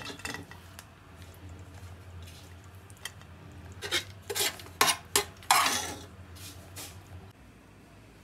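A metal spoon clinking and scraping in a cooking pot as thick prawn curry is scooped out: a few sharp clinks about four to five seconds in, then a longer scrape. A steady low hum runs underneath.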